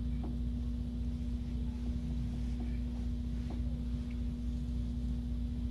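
Room tone: a steady low hum with one constant tone held through it, and a few faint small ticks.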